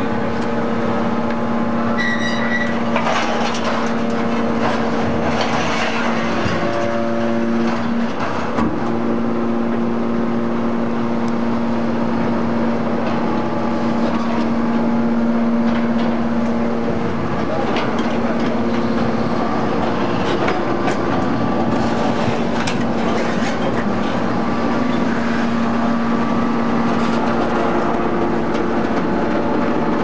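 Hydraulic metal scrap baler's power unit running: a steady mechanical hum from the motor and hydraulic pump, its higher tones shifting now and then, with occasional knocks.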